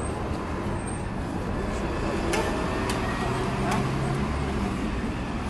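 Street traffic noise, a steady low rumble, with three sharp clicks a little past the middle.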